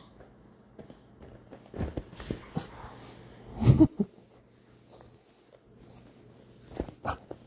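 Muffled rustling and bumps of a phone handled against clothing, loudest a little under four seconds in, with a few short vocal sounds from a toddler.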